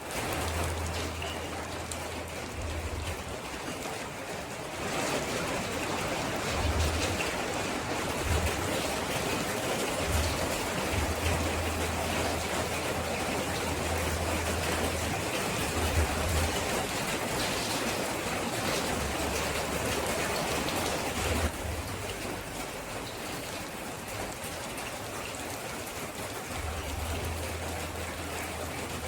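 Steady rainfall, a dense even patter. It grows heavier about five seconds in and eases back a little past the two-thirds mark.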